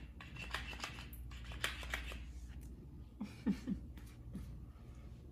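Two Savannah cats scuffling over a plush fish toy on a hardwood floor: quick rustling and clicking of paws and claws on the boards and the toy, busiest in the first two seconds. A short low sound about three and a half seconds in is the loudest moment.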